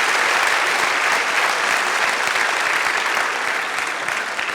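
Audience applauding at the end of a talk, a dense steady clapping that slowly dies down near the end.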